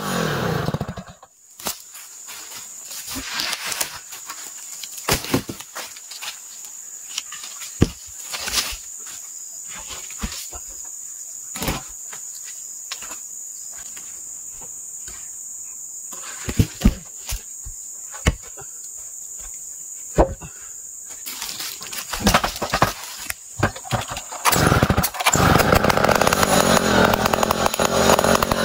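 Stihl 070 two-stroke chainsaw running loud, then dying away about a second in. A long quiet stretch of scattered knocks follows. Near the end the saw runs at high revs again as it goes into a rip cut through a hard ulin (ironwood) plank.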